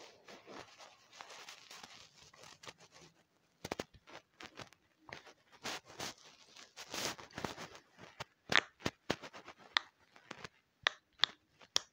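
Fingers handling a small silicone pop-it keychain and pressing its bubbles: irregular soft clicks and pops, with rubbing and scraping between them.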